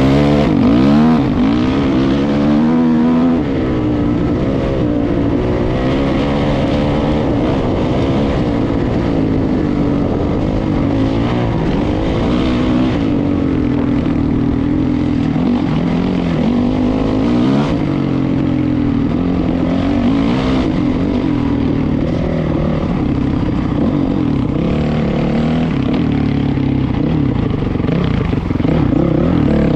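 Motor vehicle engine running continuously, its pitch rising and falling several times as the revs change, over a constant rush of noise.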